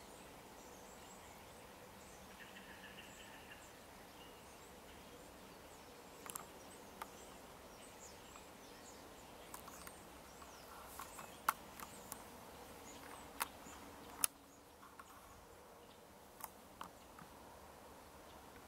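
Quiet woodland ambience: a faint steady hiss with faint high bird chirps, and a handful of small sharp clicks and taps, the loudest a little past halfway. The background hiss drops suddenly about three-quarters of the way through.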